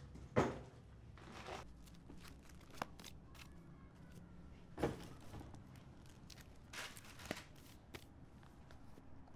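Scattered knocks, rustles and shuffles of household things being picked up, moved and handled while a cluttered room is cleared out. The sharpest knocks come about half a second in and about five seconds in.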